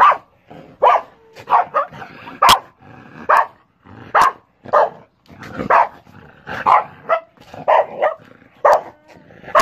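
Dog barking repeatedly, short barks coming about one or two a second, at an animal caught in a wire-mesh trap cage.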